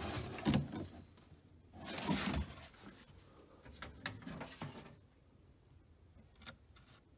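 Cardboard box of old car parts being rummaged: cardboard crinkling and scraping and loose parts shifting, in three short bursts about two seconds apart, then a few faint clicks.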